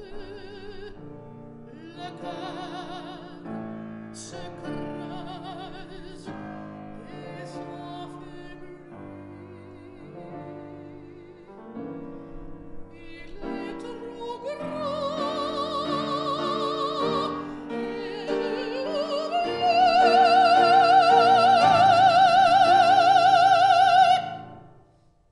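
Female operatic voice singing an aria with grand piano accompaniment, with wide vibrato. It builds through a held note in the middle to a loud high note, reached with an upward slide and held for about five seconds before it stops shortly before the end.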